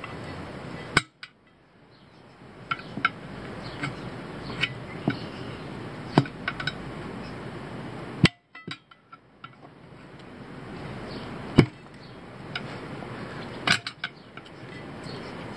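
Sharp metal knocks and clinks of a tire iron against a wheel rim as a tire bead is pried over the rim by hand, about five loud strikes a few seconds apart with lighter clicks between.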